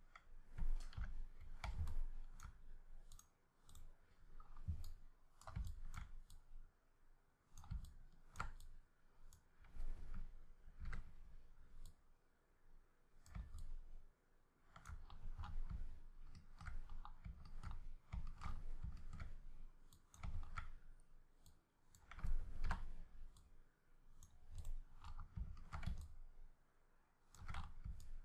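Irregular clicking of a computer mouse during 3D modelling work, with dull low thumps mixed in.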